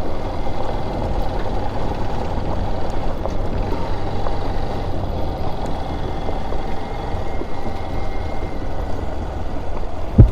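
Honda XR single-cylinder dirt bike running on a dirt road, its engine under a steady rush of wind on the microphone. A sharp knock comes at the very end.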